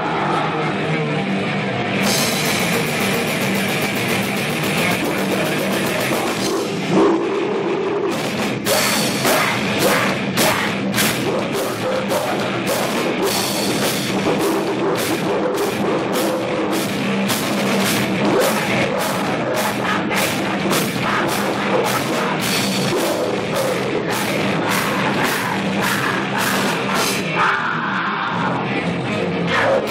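Live rock band playing loudly, with electric guitars over a Yamaha drum kit. From about eight seconds in, the drums strike hard about twice a second.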